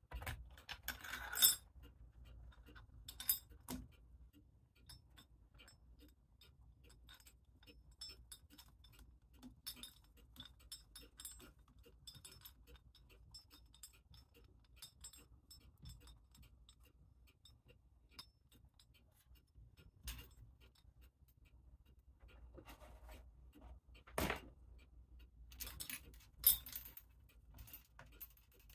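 Metal parts of a clock mainspring winder clicking and clinking as a mainspring is wound and its sleeve is taken off. The clicks are light and irregular, with a few sharper metallic knocks, the loudest late on.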